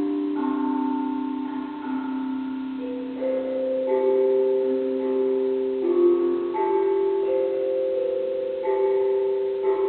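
A Jicuri drum, a tuned metal percussion instrument, played in a slow melody. Single struck notes come about once a second, each ringing on and overlapping the next.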